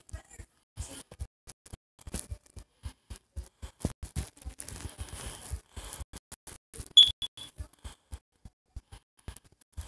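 Irregular soft taps and brushing of a finger on a phone touchscreen while drawing, picked up by the phone's own microphone, with a short high beep about seven seconds in.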